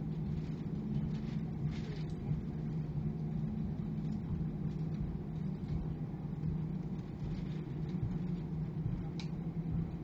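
Airbus A319 jet engines at low power while taxiing, heard from inside the cabin as a steady hum with a strong low drone.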